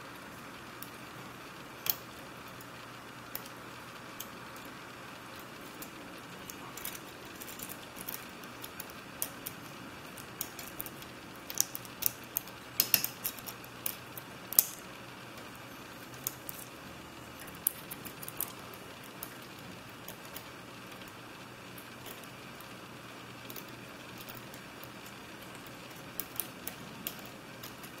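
Small metallic clicks and scrapes of a lock pick and tension wrench working the pin stack of a CISA 220/50 padlock during single-pin picking. The clicks come irregularly, thickest around the middle, over a steady low background noise.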